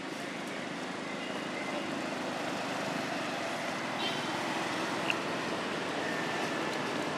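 Steady outdoor background noise, like distant traffic, with a brief high chirp about five seconds in.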